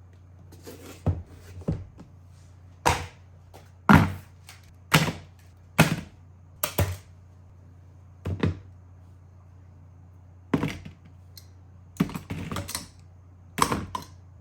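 A dozen or so irregular knocks and clicks of hard objects being handled, some in quick pairs, over a steady low hum.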